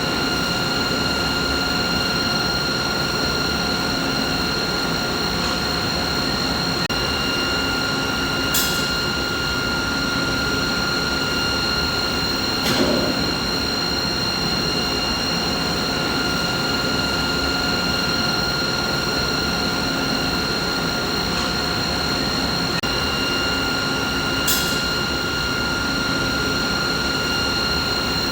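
Steady machinery hum: an even rushing noise with a constant whine on top. It is broken by a couple of short high ticks and one low knock, which recur about sixteen seconds apart as the recording loops.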